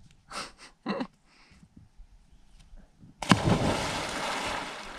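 A person jumping off a dock into a lake and landing flat on the water in a belly flop: a sudden loud splash about three seconds in, its noise dying away over the next two seconds. Two short, faint sounds come near the start.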